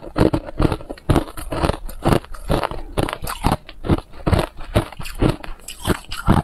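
A person chewing hard ice, a steady run of crisp crunches a couple of times a second, picked up close by a clip-on microphone at the throat.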